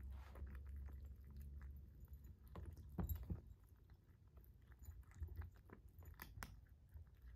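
Kittens eating from ceramic food bowls: faint, irregular chewing with scattered small clicks, a little louder about three seconds in and again around six seconds in.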